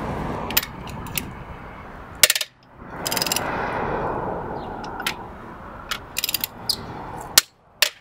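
Sharp metallic clicks and clanks of a 19 mm wrench and socket working the wheel bolts of a BMW X5 E53 as they are loosened, scattered over a steady hiss. The sound drops out briefly twice.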